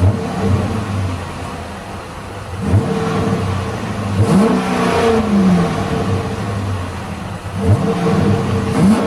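2012 Mitsubishi Eclipse GT's V6 on its stock exhaust being revved in neutral, twice: the pitch climbs quickly, holds, then falls back to idle. The first rev comes about three seconds in, the second near the end.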